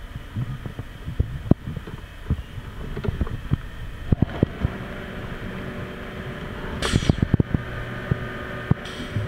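Dorian 8-station turret tool changer on a CNC lathe indexing from station to station: a motor hum with repeated clicks and clunks, and two short hisses about seven and nine seconds in.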